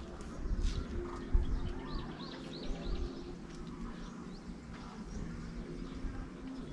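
Birds chirping outdoors, a quick run of short calls about two seconds in, over a low wind rumble on the microphone and a faint steady hum. A single short knock about a second in.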